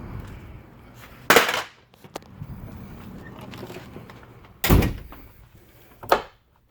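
Three loud, sharp thuds, the first about a second in, the second near the middle and a shorter one near the end, typical of doors or objects being banged shut.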